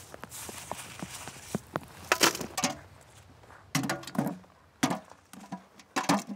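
Shellfish shells and beach gravel clicking and clattering as they are raked and picked up by hand. It comes in several short bursts of sharp knocks, the loudest about two seconds in.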